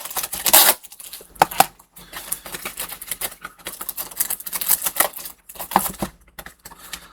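Scissors snipping through the plastic ties and packaging of a boxed doll, with irregular sharp clicks and crinkling of plastic.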